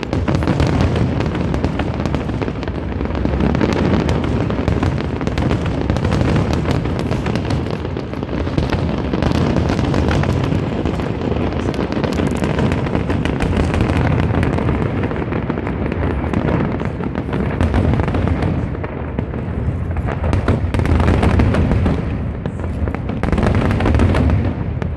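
Fireworks going off in a dense, continuous barrage: many overlapping bangs and crackles with no let-up.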